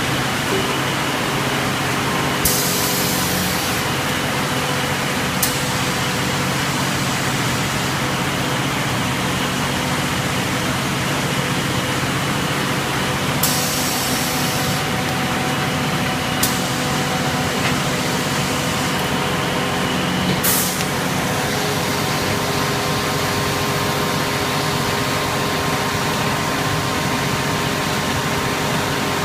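Double-layer vacuum vibrating terrazzo tile press running with a steady mechanical hum, broken twice by a hiss lasting about a second, roughly eleven seconds apart, and by a few sharp clicks.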